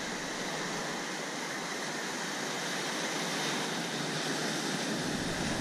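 Surf washing up the beach: a steady rush of small breaking waves and foam.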